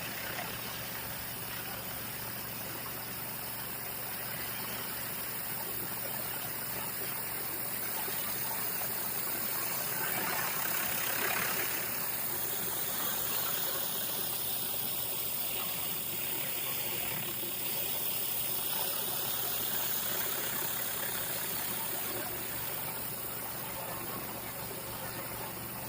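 Engine-driven commercial pressure washer running steadily, with the hiss of high-pressure water spraying onto concrete; the spray swells louder about ten seconds in.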